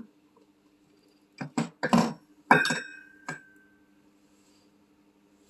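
A quick run of knocks and clinks from small hard objects handled on a workbench, one of them ringing briefly like metal, over a steady low hum.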